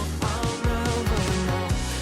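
Background pop music: a song with a steady beat and a plucked guitar-like melody, with no vocals.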